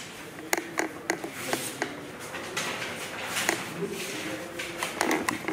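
Paper ballots being pulled from envelopes and laid down on a table: an irregular string of sharp paper rustles, snaps and taps.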